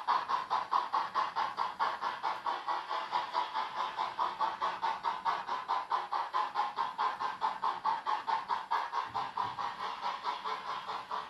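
Sound decoder in a ROCO HO-scale USATC S160 model steam locomotive playing a steady rapid exhaust chuff, about five beats a second, through the model's small speaker, growing a little fainter near the end.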